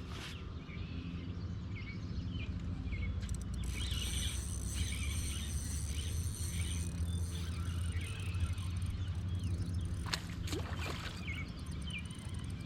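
Small birds chirping repeatedly in short, hooked notes over a steady low rumble.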